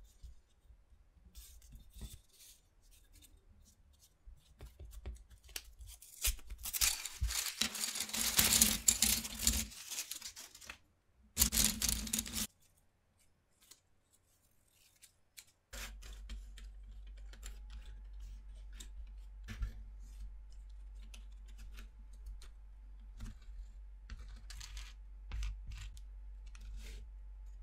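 Tape being ripped off a bundle of wooden popsicle sticks: a long, loud tearing sound about seven seconds in and a second, shorter rip a few seconds later. Afterwards the loose wooden sticks click and tap against each other and the table as they are handled and laid side by side.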